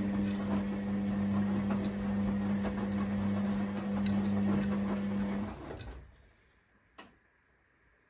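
Arçelik 7103 Y front-loading washing machine in its wash tumble: the drum motor hums steadily while the wet clothes slosh and tumble in the water. Both stop about six seconds in as the drum pauses between turns, and a single click follows about a second later.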